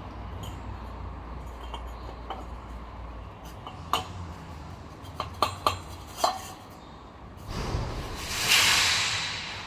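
Several sharp metallic clinks, as of metal parts knocking together, then a loud rushing noise that swells about a second from the end and fades away, over a steady low hum.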